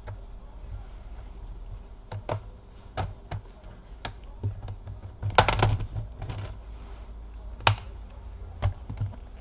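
Plastic clips of a Lenovo IdeaPad 320's bottom case snapping loose as a plastic pry tool works around the edge: scattered sharp clicks, with a louder rattling cluster about five seconds in.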